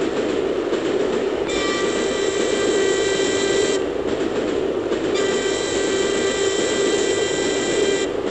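Steam train running with a steady rumbling rush. Two long, steady high-pitched tones sound over it, one starting about a second and a half in and a second about five seconds in.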